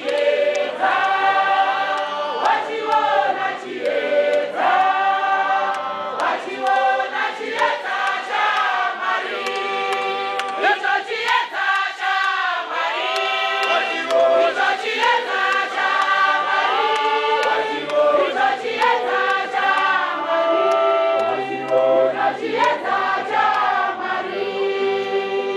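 A large congregation singing a hymn together, many voices in harmony, phrase after phrase without a break.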